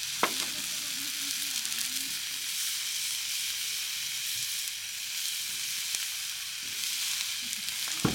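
Marinated meat skewers sizzling over hot charcoal on a grill, a steady crackling hiss. A sharp tap sounds just after the start and another near the end.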